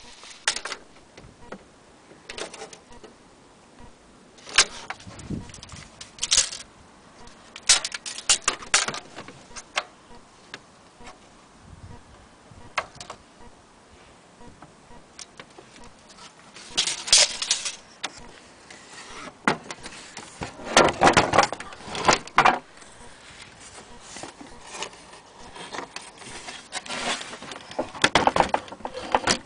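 Handling noise from a steel tape measure being laid against a wooden clock case: scattered clicks and light metallic rattles, with a few longer bouts of rustling and knocking a little past halfway and near the end.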